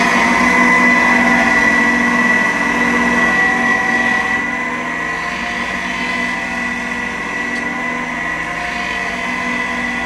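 Electric sanding machine running steadily while a graphite glassworking tool is sanded into shape on it, its motor holding a steady whine; the sound drops slightly about four seconds in.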